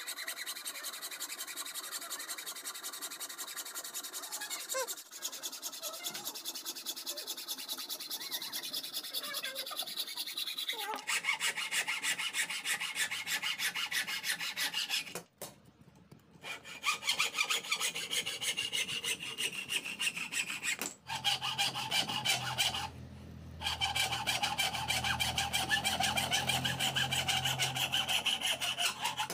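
Hand hacksaw sawing through a thin wooden strip clamped in a vise: quick back-and-forth strokes, each a rasping scrape, with a short pause about halfway through and another brief stop a few seconds later, as one cut ends and the next begins.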